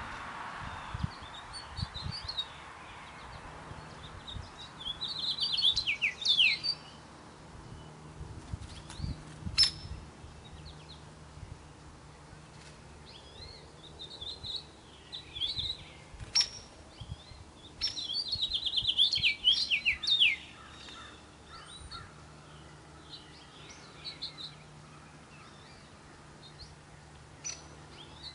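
Wild songbirds singing and chirping. Two longer, rapid trilled phrases that fall in pitch come about six and about nineteen seconds in, with short chirps scattered between, and a few sharp clicks.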